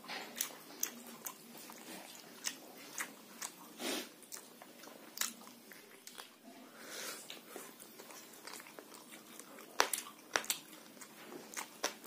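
Close-up mouth sounds of a man eating boiled pork curry and rice by hand: chewing with many short wet smacks and clicks, thicker and louder around ten seconds in.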